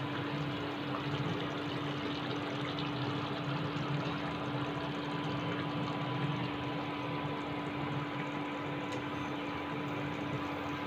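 Coconut milk chicken curry bubbling and sizzling steadily as it boils in the pan, over a steady low hum.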